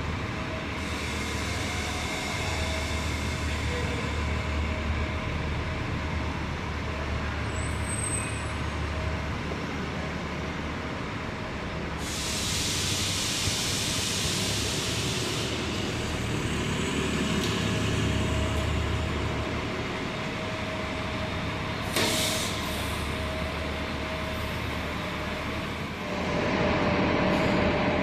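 City transit buses, one of them a hybrid-electric, idling and moving through a covered bus terminal with a steady low engine rumble and a faint steady whine. A long burst of air-brake hiss comes about halfway through, a sharp clack later, and another stretch of air hiss near the end as a bus pulls in.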